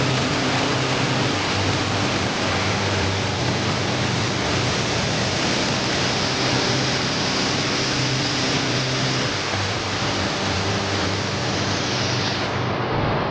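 Waterfall roaring: a loud, steady rush of falling water, with its high hiss dulling a little near the end.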